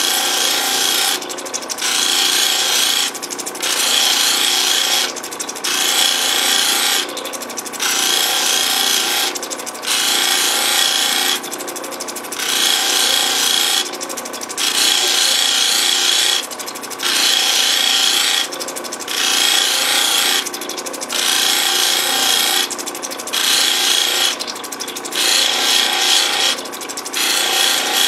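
An opal held against a spinning lapidary cabbing wheel in repeated passes, a gritty rubbing with a steady whine that starts and stops about every two seconds as the stone is pressed on and lifted off.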